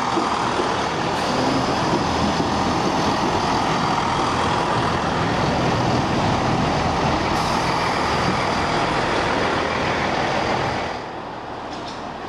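Chiltern Railways Class 165 diesel multiple unit passing close along the platform: a loud, steady rush of diesel engines and wheels on the rails. About eleven seconds in it drops suddenly to the quieter, steady rumble of another Class 165 standing at the platform.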